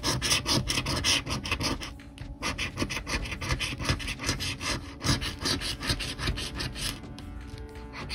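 A coin scraping the latex coating off a paper scratch-off lottery ticket in quick, repeated rasping strokes, with a short pause about two seconds in.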